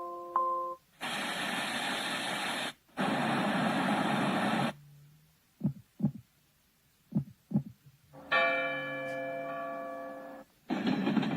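A sunrise alarm clock's built-in sounds previewed one after another through its small speaker: chime notes fading out, two stretches of steady white-noise hiss, four soft low thumps in two pairs, then a ringing bell tone, with the hiss starting again near the end.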